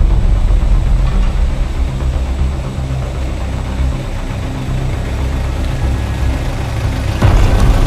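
Vehicle engine running with a steady low rumble, getting louder about seven seconds in.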